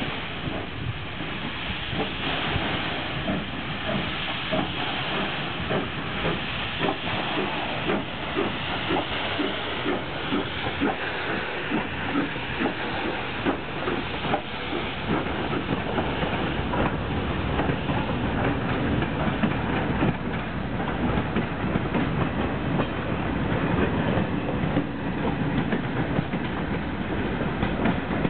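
Steam locomotive 241P17, a four-cylinder compound 4-8-2, moving off and passing at close range. It hisses steam, and its exhaust beats come at a regular rhythm. Later the heavier rolling noise of the tender and coaches on the track takes over.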